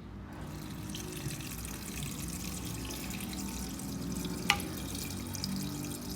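Water pouring steadily into a cooking pot, with one sharp metallic click about four and a half seconds in.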